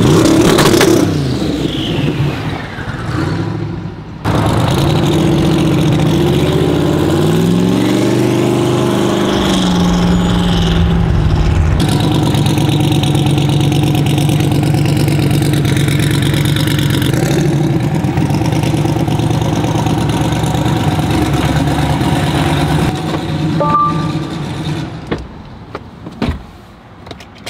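Engine of a lowered pickup truck fitted with Holley EFI, running close by. The revs drop in the first second and rise and fall again around eight to ten seconds in. It then runs steadily and fades out shortly before the end, with a few clicks after.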